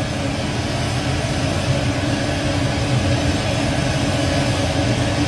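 Steady jet aircraft cabin noise in flight: an even, loud rushing drone with a low rumble and faint steady hum tones, picked up by a phone's microphone.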